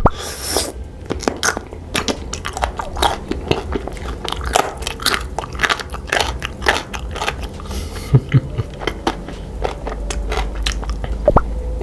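Close-miked biting and crunchy chewing of an edible Halloween finger, a dense, irregular run of crackles and clicks.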